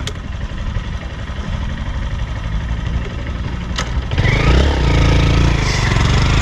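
Wind rumble on the microphone, then about four seconds in a small motorized-bicycle engine starts up and runs, louder than anything before it.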